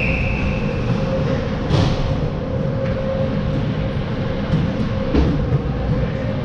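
Steady low rumble of an ice rink with a constant hum. A referee's whistle trails off in the first second, and skates scrape on the ice a couple of times.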